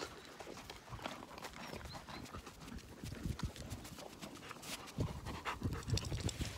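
A puppy and ponies crunching raw carrot pieces close to the microphone: a run of crisp crunches and clicks, with heavier low thuds and rustling from about five seconds in.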